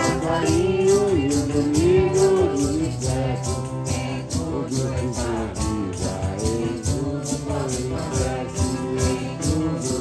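Group of voices singing a hymn melody over a steady maraca rhythm of about three shakes a second.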